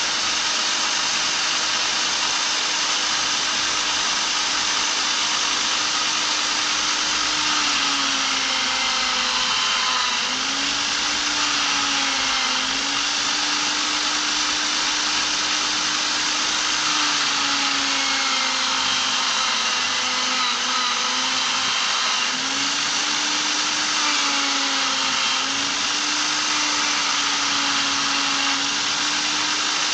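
Corded electric drill fitted with a polishing pad, running steadily as a buffing machine to polish epoxy resin. Its motor hum sags briefly in pitch several times, as when the work is pressed against the pad.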